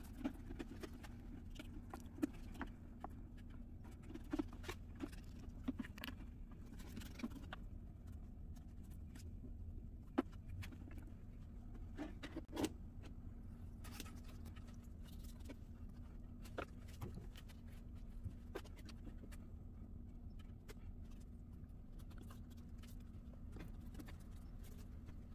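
Faint scattered taps and light handling noises from a paintbrush working over a papier-mâché mask and the mask being lifted and turned on a tabletop, the clearest taps about ten and twelve seconds in, over a steady low hum.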